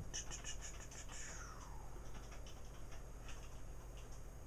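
Faint scattered clicks and scratchy ticks of a computer mouse being moved and clicked, over a low steady hum.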